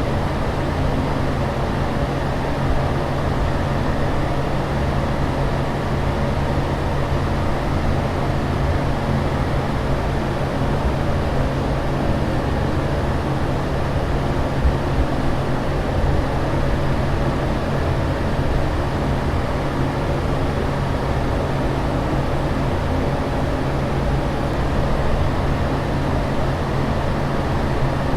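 Aircraft cabin ambience: a steady, unchanging rush of air and engine drone with a low hum underneath.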